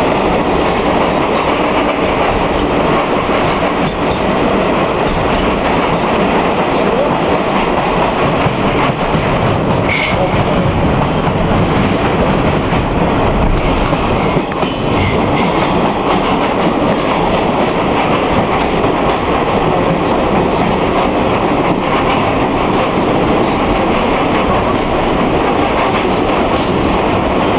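Rusich metro train running at speed through a tunnel, heard from inside the car: loud, steady wheel-and-rail noise.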